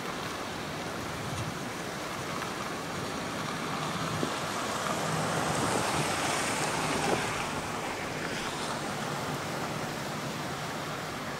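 Pickup truck carrying a camper driving past on a wet gravel road: its engine and tyre noise swell as it approaches, peak as it passes about six seconds in, then fade as it pulls away. Wind buffets the microphone throughout, and a couple of sharp clicks sound as the truck goes by.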